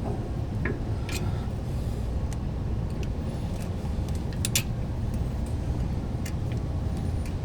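Light metallic clicks and taps, scattered and irregular, from a cotter pin being fitted through a slotted nut on a van's front suspension. A steady low rumble runs underneath.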